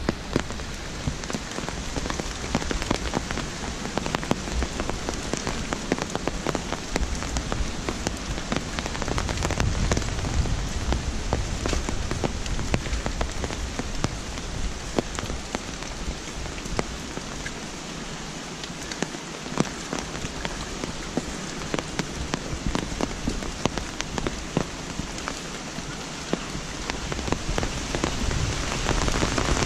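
Steady rain falling on leaves and wet paving, with a dense patter of close individual drop hits.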